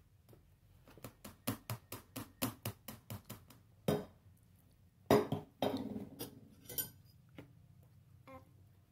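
An eating utensil clinking against a bowl while egg is worked into noodles: a quick run of light taps, about five a second, then a louder knock and a few louder scraping clinks.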